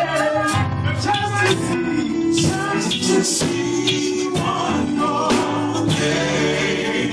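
Gospel song with sung vocals over bass, drums and percussion, with a steady beat.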